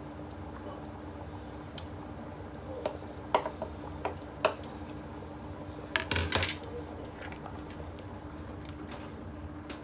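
Metal cooking utensils and a pot clinking and knocking. There are a few scattered single clinks, then a louder clatter about six seconds in, over a steady low hum.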